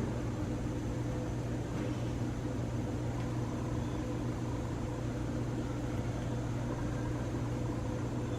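Steady low electrical hum under a soft rush of air from a 60-inch Hampton Bay Industrial ceiling fan turning at low speed, with faint distant voices.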